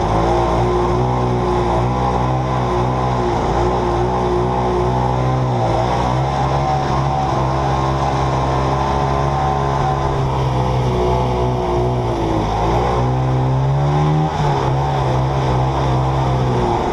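Two-stroke engine of a vintage Mercury Hurricane Mark II snowmobile running under way. Engine speed dips briefly about five seconds in and again about twelve seconds in, then picks up.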